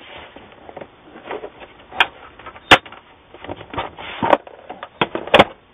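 Plastic back cover of an LCD monitor being pressed and snapped onto its clips: several sharp plastic clicks with handling and rubbing noise in between.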